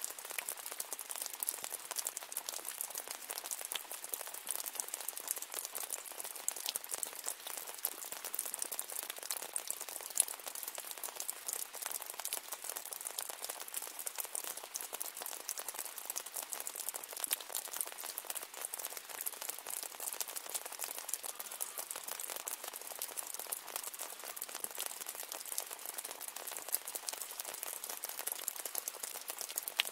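Steady rain: a dense, even patter of many small drops, bright and hissy, with no thunder or low rumble.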